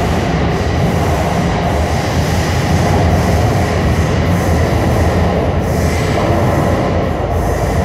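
São Paulo Metro Line 4-Yellow train running through a tunnel, heard from inside the car: a loud, steady rumble of wheels on rails.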